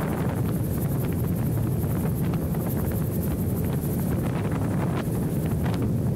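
Open-cockpit gyrocopter in flight: steady engine and rotor noise, with heavy wind buffeting on the microphone.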